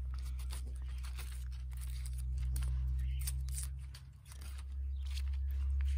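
Dry, papery outer scales of a rotting Hippeastrum bulb being torn and peeled off by gloved hands: scattered crackling and tearing. A steady low hum runs underneath and dips briefly about four seconds in.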